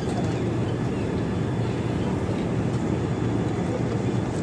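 Passenger train coaches rolling slowly along a station platform: a steady low rumble of wheels on rail, with no distinct beat.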